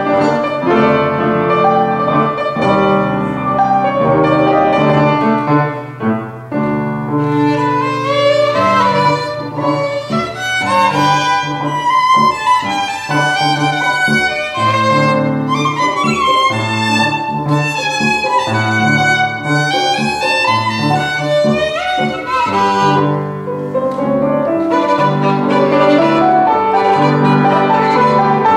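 Solo violin and piano playing classical music. The piano plays alone at first, the violin comes in about a quarter of the way through, and the violin then plays quick rising and falling runs over the piano accompaniment.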